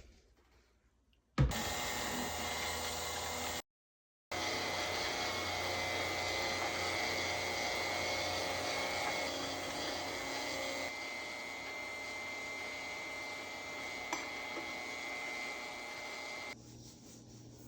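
Small electric mixer motor whirring steadily while blending body polish, starting suddenly about a second and a half in, cutting out briefly around four seconds, dropping a little in level near eleven seconds and stopping shortly before the end.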